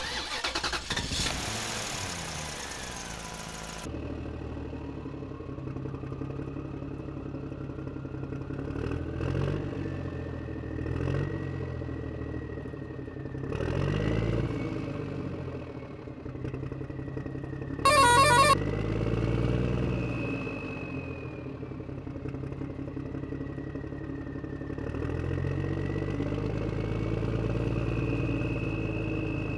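A vehicle engine running steadily, with a whine that slowly rises and falls in pitch. A brief loud blast comes about 18 seconds in. Music plays for the first few seconds.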